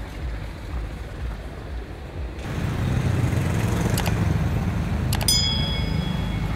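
Steady low rumble of vehicle or engine noise, growing louder about two and a half seconds in, with two sharp clicks and a short metallic ring about five seconds in.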